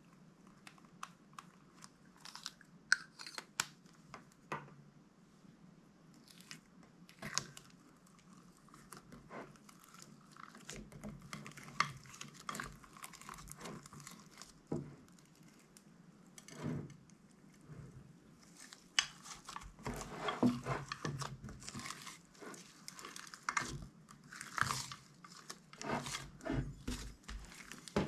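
Hands working slime: irregular sticky clicks, pops and crackles, sparse at first and coming thicker and faster in the last third.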